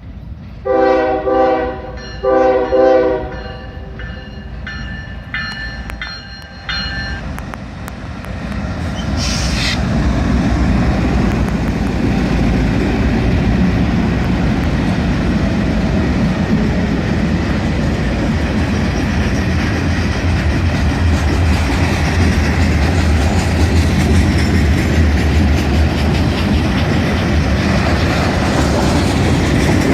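Norfolk Southern locomotive air horn sounding two loud blasts, then several fainter, shorter notes: a short horn show. The train then passes close by with a steady rumble of engines and wheels clattering over the rail joints.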